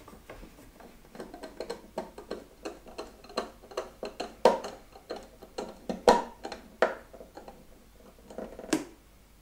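Hand screwdriver driving a screw through a thin MDF back panel: a run of irregular small clicks and ticks, with a few louder clicks here and there.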